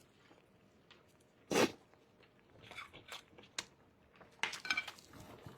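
Quiet mouth noises of someone eating extra-spicy fried rice noodles: a short sharp sound about a second and a half in, then small chewing clicks and breathy noises near the end.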